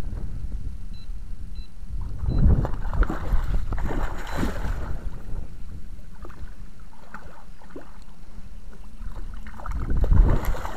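A large hooked fish thrashing and splashing at the surface as it is played in close to the bank, over a steady low rumble. There are splashes about two and four seconds in, and the loudest one near the end.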